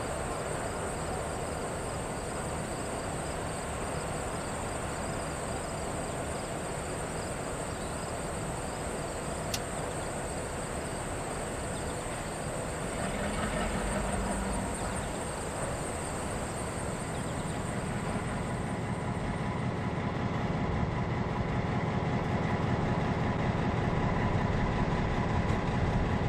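Insects trilling steadily, with a diesel locomotive's engine running underneath; the engine grows louder through the second half as the trilling fades out.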